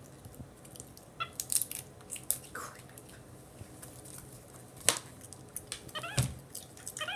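Capuchin monkey chewing a piece of banana: scattered soft clicks and smacks of eating, with one sharper click about five seconds in.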